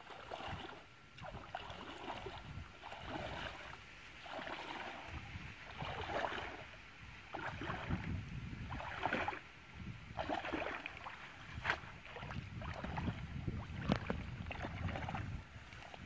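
Legs wading through shallow muddy paddy water, sloshing and splashing with each stride, a splash every second or so.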